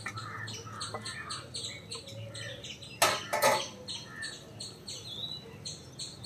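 Two sharp knocks of kitchen utensils at the cooking pan about three seconds in, over a quick, even high-pitched chirping in the background.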